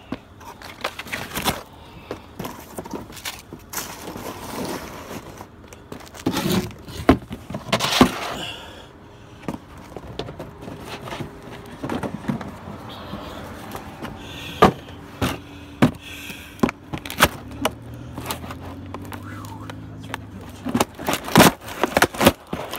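Cardboard shoe boxes being stomped flat under boat shoes: repeated sharp crunches and cracks of folding cardboard, with rustling and scraping as the boxes are shifted between stomps. The crunches come in several bouts, the loudest near the end as a shoe comes down on a fresh box.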